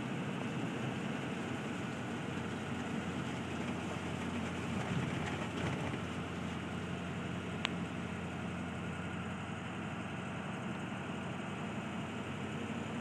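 Truck driving slowly through about a foot of floodwater, heard from inside the cab: a steady drone of engine and road noise, with a single sharp click about eight seconds in.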